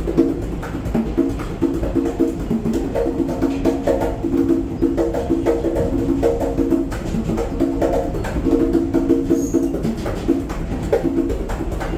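Conga drums played by hand in a quick, busy rhythm of ringing pitched tones and sharp slaps.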